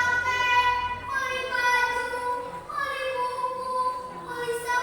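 A child's high voice holding long drawn-out notes, several in a row, each lasting about a second.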